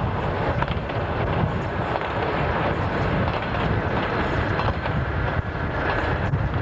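Narrow-gauge diesel locomotive and its coaches running past at close range: a steady, loud engine noise mixed with the clatter of wheels on the rails.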